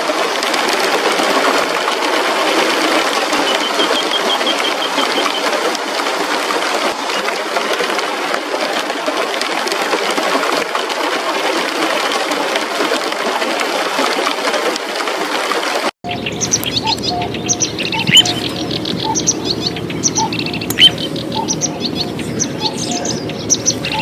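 A dense, steady hiss that cuts off abruptly about two-thirds of the way through, followed by small birds chirping with quick high calls and a few sharp, louder ones.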